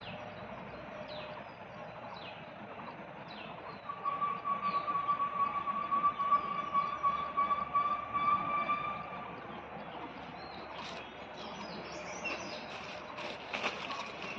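Outdoor woodland sound: short falling bird chirps repeating about once a second, then a steady pitched whine that pulses in loudness for about five seconds. Near the end, quick scratchy rustling as cats scramble through dry leaves and onto a tree trunk.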